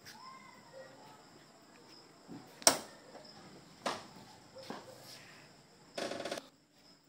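Crickets trilling steadily, with a few sharp clicks, the loudest under a third of the way in, and a short buzzy burst near the end.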